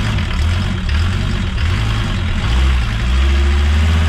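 Mercedes-Benz OM617 five-cylinder diesel running under load in a moving MB 407 van, heard from inside the cab with the engine cover off. The engine note dips briefly about two and a half seconds in, then runs steady again.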